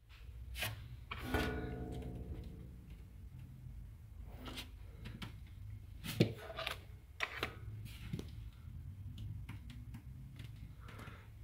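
Handling noise around a metal electrical panel: scattered clicks and knocks, with one ringing metallic clang about a second in that dies away over roughly a second, over a low steady hum.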